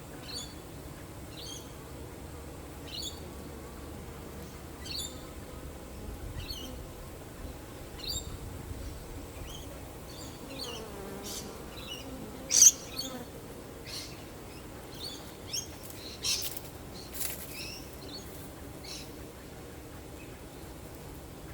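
Honeybees buzzing steadily, with one passing close near the middle, its buzz sliding in pitch. A bird chirps over it in short calls every second or two, the loudest a sharp call a little past halfway.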